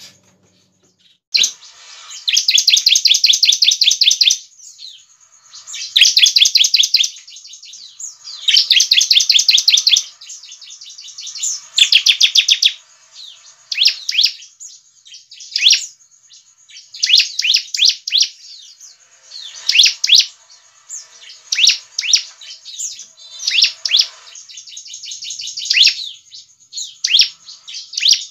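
Bar-winged prinia (ciblek) singing fast, rattling trills. The first few runs last about two seconds each; after that come shorter bursts every second or two.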